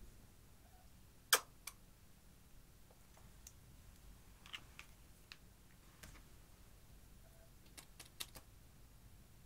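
Plastic makeup tubes and caps being handled over a glass dish: scattered light clicks and taps, the sharpest about a second in and a small cluster near the end.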